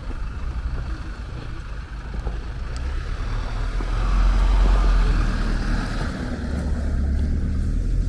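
A vehicle passing on a snowy street, its rumble swelling about four seconds in, with wind on the microphone.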